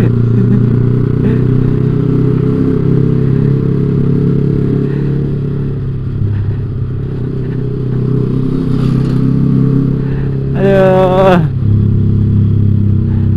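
Yamaha sport motorcycle engine running at a steady cruise, its note dipping slightly about halfway through and picking up again. A short voice sound comes in near the end.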